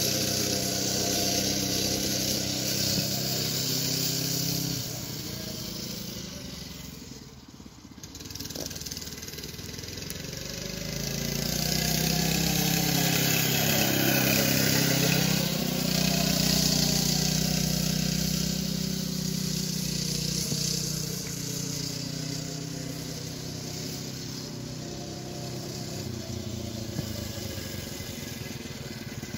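80cc go-kart engine running as the kart drives about, its pitch rising and falling with the throttle. It fades to its quietest about a quarter of the way in, then grows louder as the kart comes close and passes.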